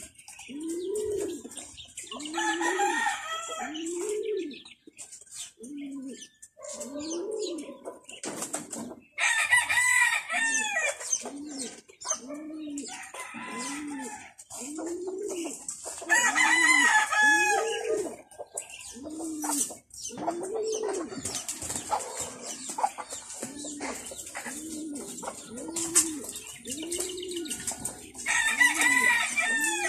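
Domestic pigeons cooing over and over, a short low rise-and-fall coo about once a second, with a rooster crowing several times.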